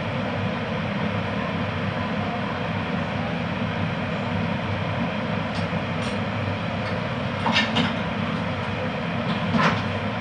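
A steady machine-like rumble, with a few soft clicks and rustles from about six seconds in and again near the end as hands mix cooked pasta in a glass baking dish.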